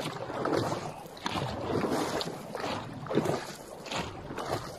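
Paddles of a long racing-boat crew pulling through the water together, the rush and splash swelling with each stroke in a rough rhythm, with wind on the microphone.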